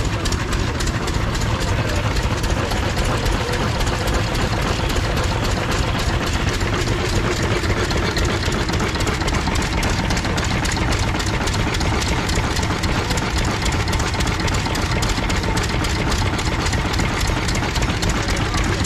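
Vintage vertical stationary engine with twin spoked flywheels, running steadily at idle with an even, rapid beat.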